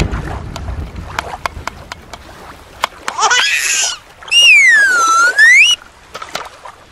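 A whistle-like tone that slides down and back up over about a second and a half, after a shorter burst of rising chirps, typical of an added cartoon sound effect. Under it come light clicks and small splashes of a plastic toy being handled in shallow water, with a low thump at the start.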